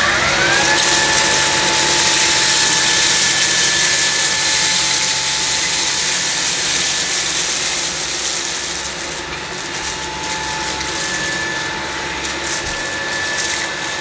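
Bosch Unlimited BCS111GB cordless stick vacuum running on turbo mode, its motor rising to a steady high whine at the start and beginning to wind down at the very end. Over the motor, grains of rice and lentils rattle as they are sucked up and scattered by the brush head on hard tiles.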